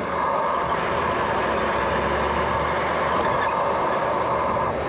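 A vehicle driving, with steady engine rumble and road noise.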